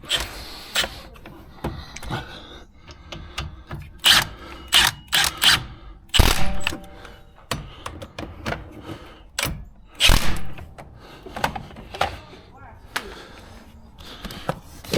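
Metal tools and parts clanking and knocking in a series of sharp, irregular strikes during brake work, the loudest about 4, 6 and 10 seconds in.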